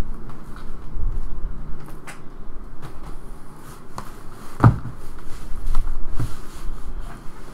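Shrink-wrapped cardboard trading-card boxes being pulled from a stack, slid and set down on a table: rubbing and scattered soft knocks, with one heavier thud about halfway through.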